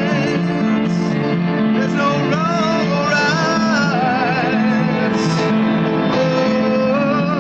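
A live band playing a song, with a melody line sung or played over steady chords.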